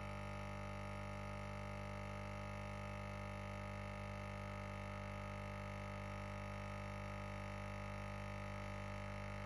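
Nespresso capsule machine's pump humming steadily while brewing an espresso into a cup.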